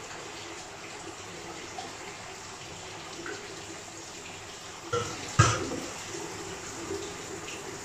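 Tap water running into a kitchen sink during hand dishwashing, with two sharp knocks of dishes about five seconds in, the second the louder.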